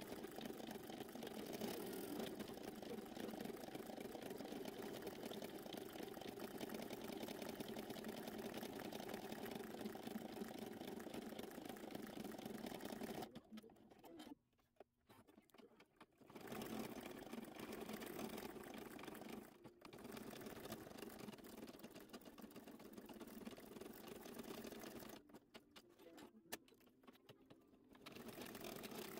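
Embroidery machine running and stitching, heard sped up as a steady fast machine sound. It stops twice for two to three seconds, about halfway through and near the end, with a brief break between the two stops.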